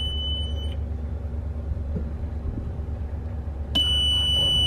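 Helm engine-panel alarm buzzer sounding a steady high-pitched tone that stops under a second in and starts again near the end, over a steady low rumble.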